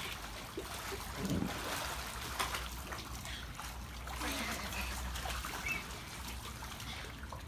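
Water splashing and sloshing as children kick and swim in a shallow inflatable pool.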